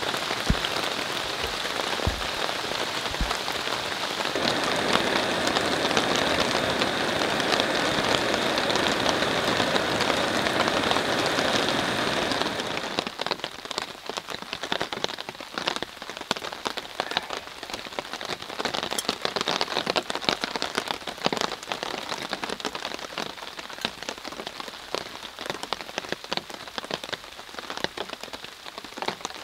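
Steady rain falling on woodland and a tarp shelter. About twelve seconds in, it changes to quieter, scattered individual drops tapping on the tarp overhead.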